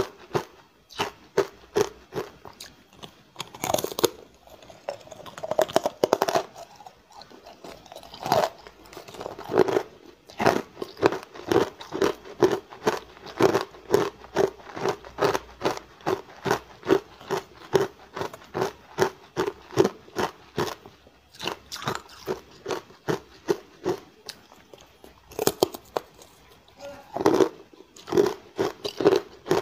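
Hard ice slabs coated in matcha powder being bitten and chewed: a steady run of sharp crunches, about two to three a second, with a few heavier bites among them.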